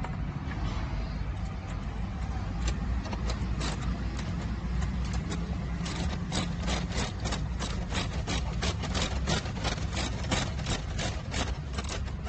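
Steady low rumble like an idling engine. From about six seconds in, a run of sharp clicks, about four a second, from a ratchet driving in the panel's mounting screws.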